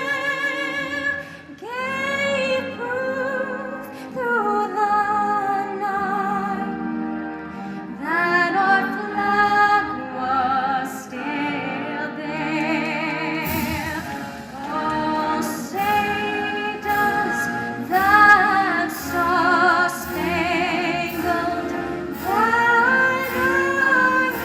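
A woman's voice singing with strong vibrato over instrumental backing music. A regular beat joins about halfway through.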